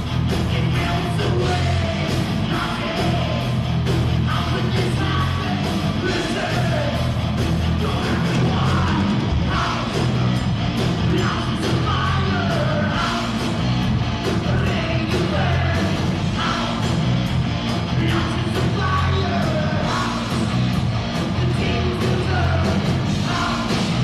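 Live heavy metal band playing loudly, with electric guitars and drums and a singer yelling into the microphone.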